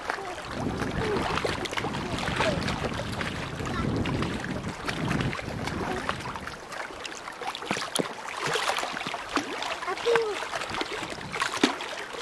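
Small waves lapping and splashing with many short slaps, and wind buffeting the microphone, heavier in the first half. A couple of brief faint calls rise above it, one about ten seconds in.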